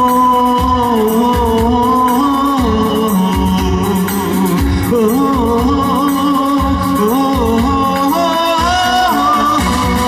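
A man singing a Vietnamese song into a microphone over a recorded backing track with a steady beat.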